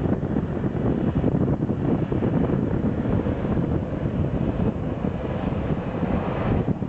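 Steady low rumble of aircraft engines, rough and fluctuating from wind buffeting the microphone.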